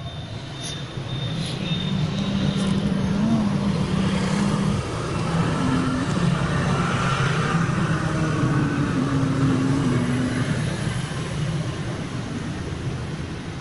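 Road traffic: vehicle engines running past, their low hum shifting in pitch, over a steady wash of street noise that grows louder about a second in.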